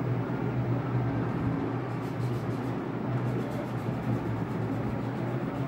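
A steady low hum with background noise, and faint scratching of a wax crayon colouring on paper.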